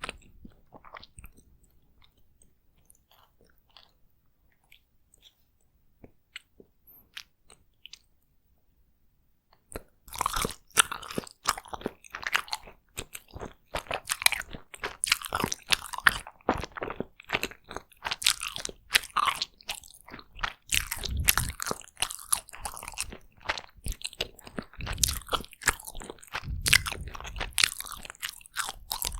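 Close-miked eating of takoyaki: a few faint mouth clicks at first, then from about ten seconds in, steady, dense biting and chewing.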